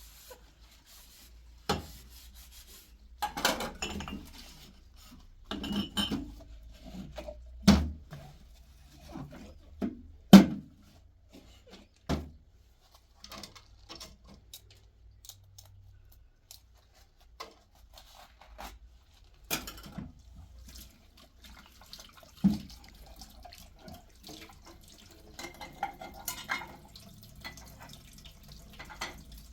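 Dishes and utensils being handled, with scattered sharp knocks and clinks and short spells of running tap water, as at a kitchen sink.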